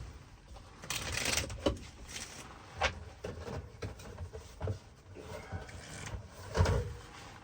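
Handling sounds of a cribbage game on a table: scattered clicks and knocks of cards and pegs, with a short rustle of cards about a second in.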